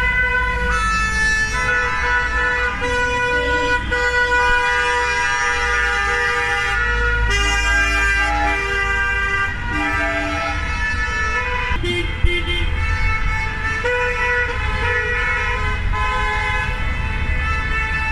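A convoy of cars honking their horns without a break, many horns of different pitches sounding over one another and starting and stopping at different times, over the low rumble of car engines passing slowly.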